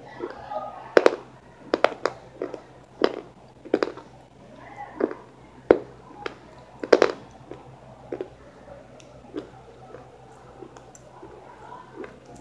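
Close-up chewing of something hard: sharp crunches and mouth clicks at irregular intervals, about two a second at first, growing sparser and fainter in the last few seconds.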